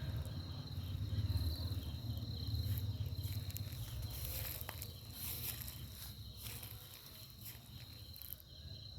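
Crickets chirping steadily in a high, even tone. Footsteps and a low rumble on the microphone are loudest in the first half and fade toward the end.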